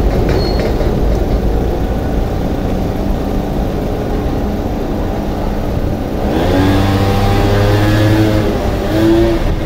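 Street traffic with a steady low rumble of cars on the road. A little past halfway, a car engine's note rises as it accelerates, then holds steady.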